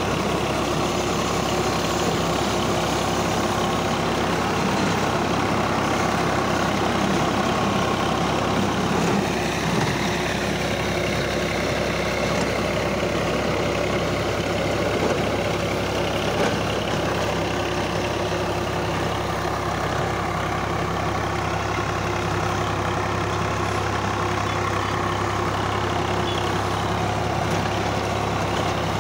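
Swaraj 855 FE tractor's diesel engine running steadily under load while it drives a rotavator that churns through paddy stubble.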